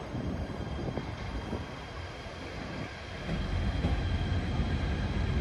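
Train running on the rails: a low rumble that grows louder about three seconds in.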